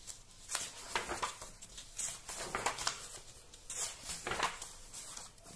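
Magazine pages being handled and turned: a series of short, irregular paper rustles and swishes.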